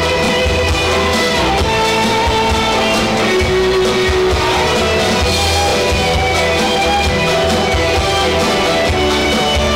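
Music: band accompaniment with guitar and drum kit under a held melody line.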